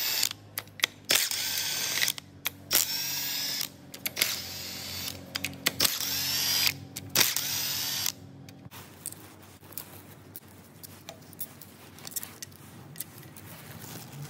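Power tool undoing the sump bolts in a run of short bursts, its motor whirring up and down between pauses, over a steady low hum. After about nine seconds the bursts stop and only light metallic clicks of handling remain.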